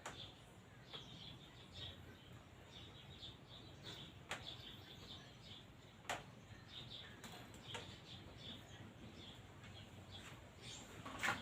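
Faint, quiet background with scattered short bird chirps and a few sharp light clicks, the loudest about six seconds in.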